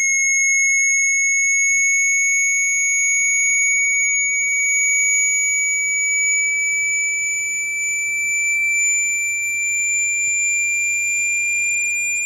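Synthetic high-pitched sweep tone for shaking water out of a phone or earphone speaker: one steady whistle near 2 kHz, rising very slowly in pitch, with fainter higher tones above it.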